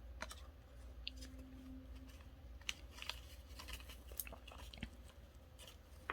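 Scattered light clicks, taps and rustles of a lavalier microphone kit and its paper instructions being handled as it is taken out of its pouch.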